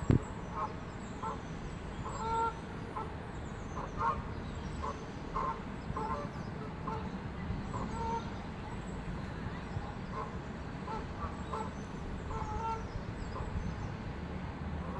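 Goose honking repeatedly, short calls about every half second to a second, over a low steady background rumble.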